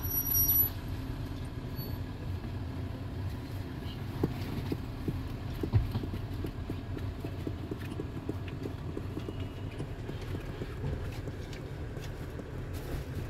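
Minibus engine running, heard from inside the passenger cabin as a steady low rumble, with scattered clicks and rattles from the cabin and one louder knock about six seconds in. A brief high electronic beep sounds at the very start.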